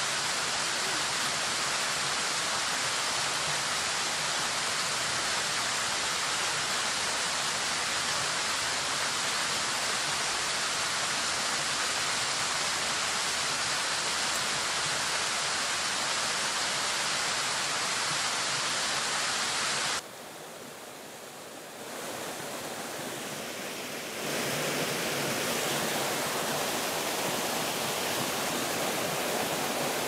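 Small woodland waterfall: water rushing steadily over rocks. The sound drops noticeably quieter for a few seconds about two-thirds of the way through, then comes back.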